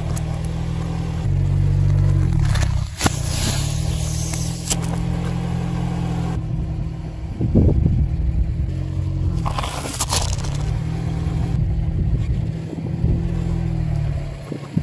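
A car engine's low steady hum as the car creeps forward, with several short crushing noises as its tyre rolls over and flattens food: a carton of chopped tomatoes, hard-shelled candy-coated chocolates and slices of bread. The loudest crunch comes about seven and a half seconds in.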